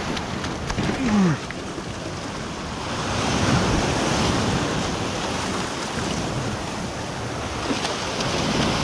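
Ocean waves surging and breaking against a rock ledge, swelling twice, with wind buffeting the microphone. About a second in comes a brief, low, falling vocal grunt.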